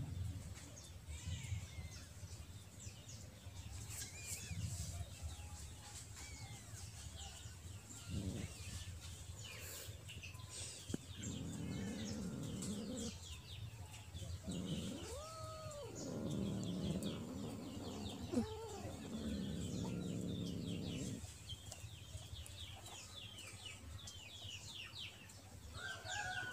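Domestic chickens clucking, most steadily through the middle of the stretch, with a couple of longer rising-and-falling calls.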